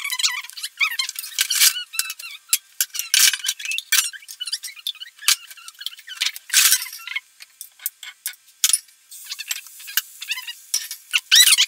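Kitchen utensils rattling and clinking against each other in a drawer as they are rummaged through, with many sharp clicks and short high squeaks.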